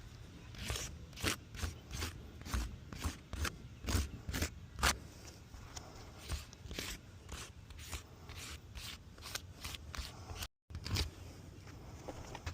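Asphalt roof shingles being worked loose by hand: an irregular run of sharp scrapes, crackles and clicks as the gritty shingles are pried and peeled, their sealant strips tearing away. The sound cuts out briefly near the end.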